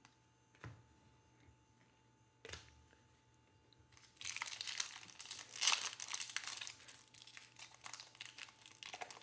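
A couple of soft taps, then from about four seconds in the foil wrapper of a Panini Mosaic basketball card pack crinkling as it is handled and torn open.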